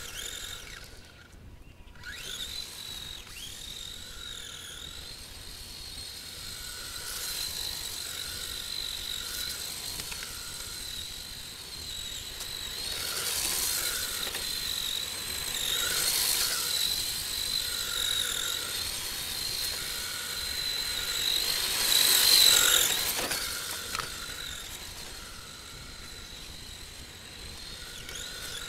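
Electric motor and drivetrain of an HPI E10 radio-controlled drift car whining at a high pitch as it is driven around, the whine wavering and swelling as the car speeds up, slows and passes; loudest about 22 seconds in.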